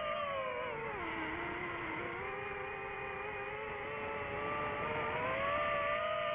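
DJI FPV quadcopter's motors and propellers whining steadily; the pitch drops about a second in, then climbs back up over the next few seconds.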